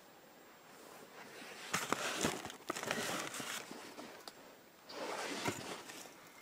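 Rummaging on a shelf: old cardboard boxes rustling and scraping as they are shifted, with small knocks. It comes in two bouts, a longer one from about a second and a half in and a short one about five seconds in.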